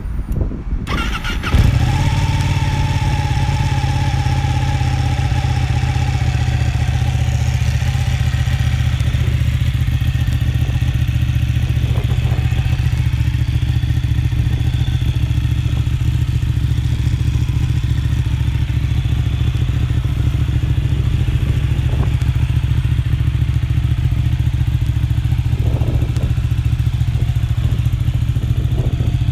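2014 Ducati Panigale 899's Superquadro 90° twin, fitted with a Termignoni exhaust, cranking briefly and catching about a second and a half in, then idling steadily.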